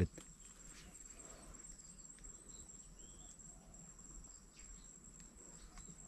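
Faint, steady, high-pitched insect chirring, a fine pulsing trill that runs on unbroken.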